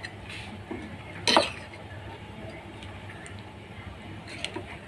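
A steel ladle stirring thin semolina batter in a glass bowl, with one sharp clink about a second and a half in and a few lighter knocks of the ladle against the bowl.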